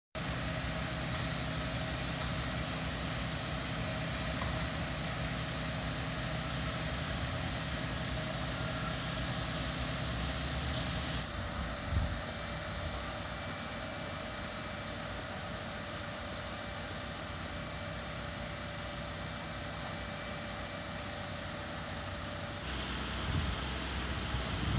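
Parked fire engines idling: a steady low engine hum with a constant tone above it. There is one short knock about halfway through.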